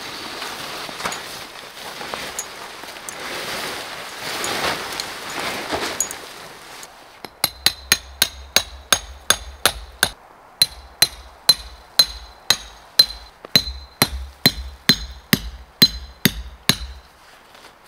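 A hammer striking metal in runs of quick, even blows, about three a second, each with a bright metallic ring. This is typical of driving a steel tent stake. The blows start about seven seconds in, after a stretch of rustling noise, and pause briefly twice.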